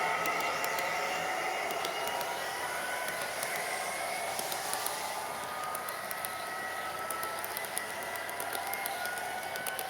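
Model MP40PH locomotive running with a nine-coach train: a steady whirring motor with faint tones slowly rising in pitch, and wheels clicking lightly over the track. It grows fainter over the first few seconds, then holds steady.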